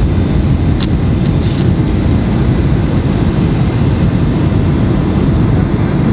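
Steady low rumble of aircraft engine and cabin noise, with a few faint clicks about a second in.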